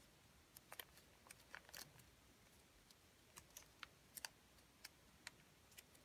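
Faint, scattered crackles and ticks of thin origami paper being handled, folded and creased by fingers, about a dozen short clicks over a few seconds.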